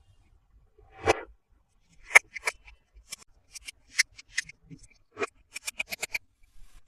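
Scissors snipping through toy packaging: a short rustle about a second in, then a string of sharp separate snips, ending in a quick run of about six.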